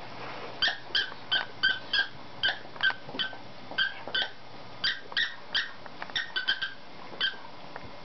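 Plush squeaker toy squeaking again and again, about three short squeaks a second, as a saluki chews on it; the squeaking stops near the end.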